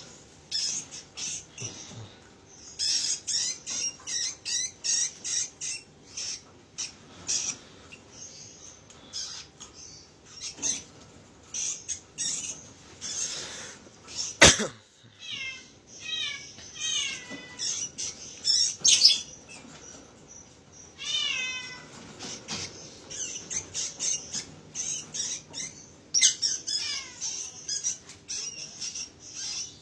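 Shrill squeaks and quick runs of falling chirps from a parakeet and a mouse fighting inside a bird cage, with one sharp knock about halfway through.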